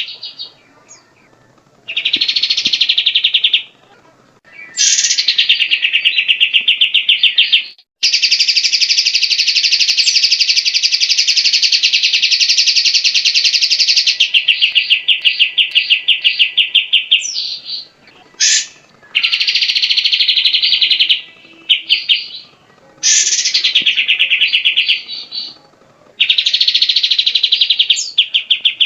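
Grey-cheeked bulbul (cucak jenggot) singing in loud, very rapid high trills. Each phrase runs a few seconds, several open with a quick upward sweep, and short pauses separate them.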